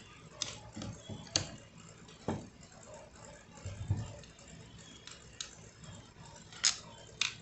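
Scattered clicks and light knocks of a DeWalt angle grinder's housing and hand tools being handled while its screws are tightened after reassembly.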